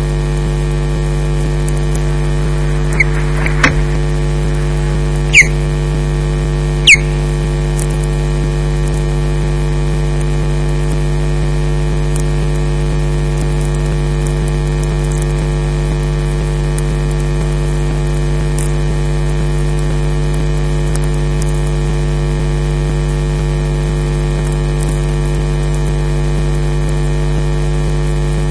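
Steady, loud electrical mains hum from a nest camera's audio feed, with a few short, sharp high sounds between about three and seven seconds in.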